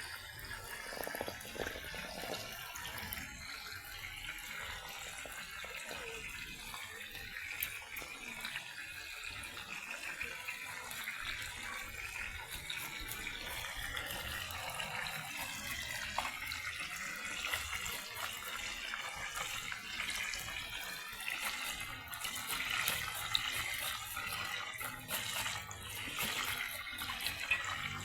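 Water running and splashing steadily into a sink or basin, as in washing in the kitchen, with a few small clicks near the end.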